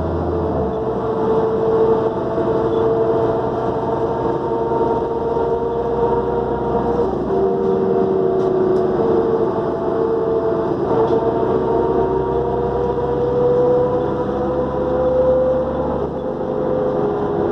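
New Flyer D40LF diesel transit bus under way, heard from inside: the engine runs with a low rumble under a steady turbo whine that drifts slowly up and down in pitch.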